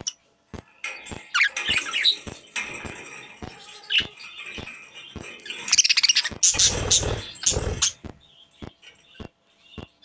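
Pet budgerigars chirping and warbling, loudest and fullest from about six to eight seconds in, over a run of sharp clicks every few tenths of a second.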